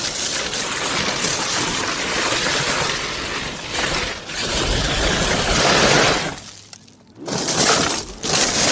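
4x4's tyre rolling over loose, rounded river stones: a continuous crunching clatter of rock grinding on rock. It drops away briefly about seven seconds in, then returns.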